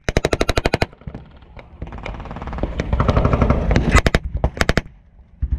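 German WWII-style belt-fed machine gun firing a short, very rapid burst lasting under a second, then a few more quick shots about four seconds in.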